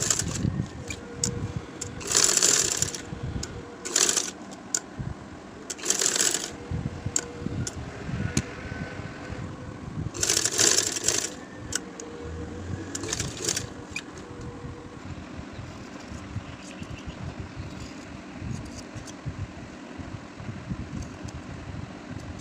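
Cotton fabric being handled and folded at a sewing machine: several loud rustles of cloth in the first half, then quieter rustling of the cloth toward the end.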